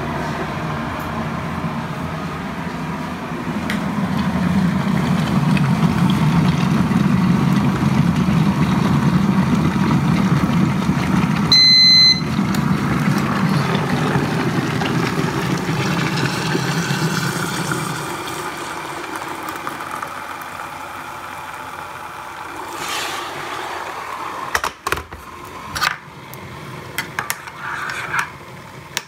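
Kettle heating water to the boil: a rumbling hiss builds over a few seconds and then dies away, with a short electronic beep about twelve seconds in. Near the end a teaspoon clinks against a mug as it stirs coffee.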